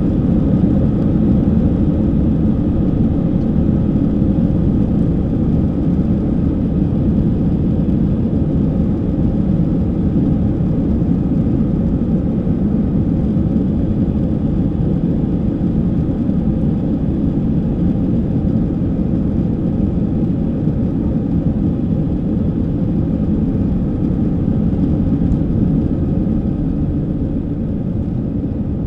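Airbus A321's CFM56 jet engines running steadily at full takeoff thrust, heard inside the cabin over the wing, along with the rumble of the takeoff roll down the runway. The noise eases slightly near the end as the aircraft lifts off.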